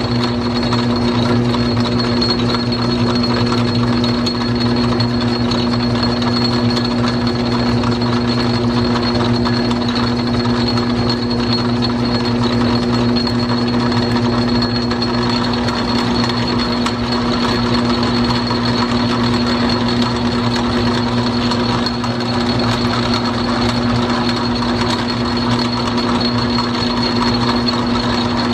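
Small metal lathe running under power during a single-point thread-cutting job, a steady unbroken machine hum with a strong low tone.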